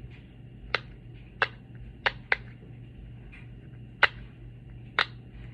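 Silicone pop-it fidget toy being pressed, its bubbles popping with sharp, separate clicks, about six of them at an uneven pace.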